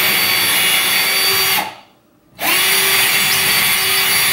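Power drill with a small bit boring a pilot hole into ceiling drywall, in two runs. The first stops about a second and a half in, and after a short pause the second starts. Each time the drill spins up quickly and then runs at a steady pitch.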